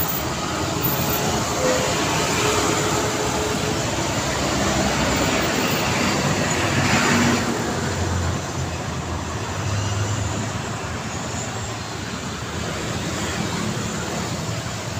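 Busy street traffic: cars, minibuses, a truck and motorcycles passing close by in a continuous mix of engine noise. The loudest pass comes about seven seconds in, and the traffic eases a little after that.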